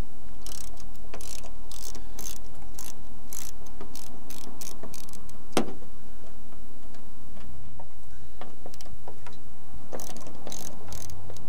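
Hand socket ratchet clicking in quick short strokes, about three clicks a second, as it backs out a bolt through a steel jeep cowl while a wrench holds the nut behind. A single sharper metal clink about halfway through; the ratcheting slows, then picks up again near the end.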